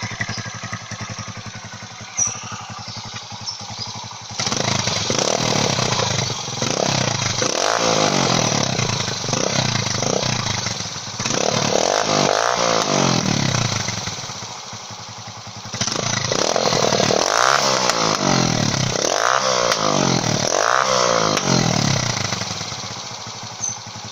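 Italika FT150S single-cylinder motorcycle engine through a copy Akrapovič exhaust with the dB killer removed. It idles, then is revved again and again, the pitch climbing and falling with each blip. A sharp pop comes about two seconds in and another near the end: backfire explosions that the owner thinks come from badly adjusted valves.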